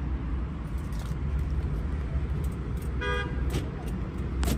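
A short car-horn toot about three seconds in, over a steady low rumble with a few light clicks.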